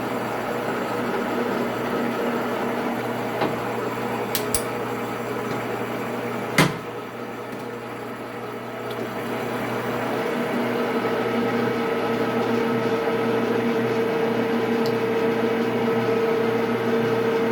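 Electric pipe threading machine running, spinning a short pipe nipple held in a nipple chuck for reaming and threading. It is a steady motor hum with a couple of sharp clicks about four and six and a half seconds in, and the hum grows louder and more tonal from about ten seconds in.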